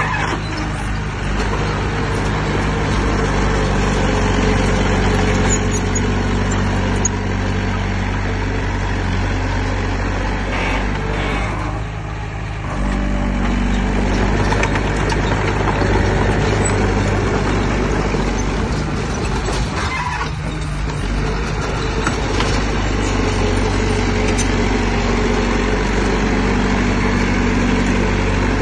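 Heavy-equipment diesel engine running steadily and loud. It dips briefly about twelve seconds in and picks back up, with a smaller change about twenty seconds in.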